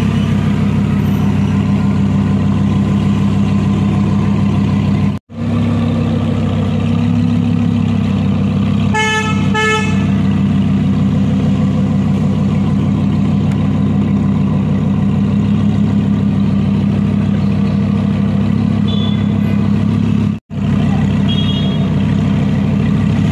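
Lamborghini Huracán's V10 engine idling steadily, with two short car-horn toots about nine seconds in. The sound drops out briefly twice.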